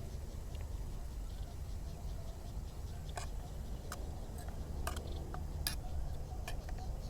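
A handful of sharp clicks and taps, irregularly spaced, beginning about three seconds in, over a steady low rumble.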